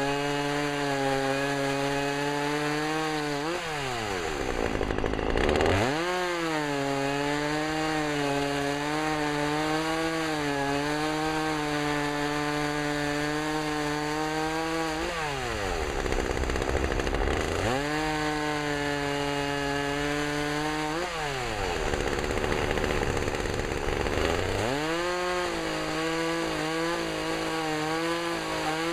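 Chainsaw running at high revs and bogging down three times as it cuts through wood. Each time its pitch sweeps down into a rough, noisy stretch, then climbs back once the cut is through. Near the end the engine note wavers up and down.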